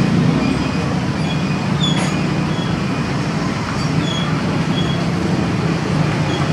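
Battered mushrooms deep-frying in a wok of hot oil over a gas burner: a steady sizzle over a low burner rumble, with road traffic mixed in.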